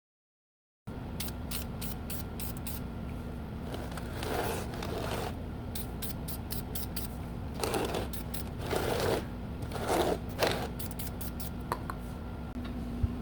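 Short scraping strokes of wooden pieces being rubbed or slid, four in all between about four and ten and a half seconds, with a few light clicks near the end; the sound starts about a second in, after a dead-silent cut.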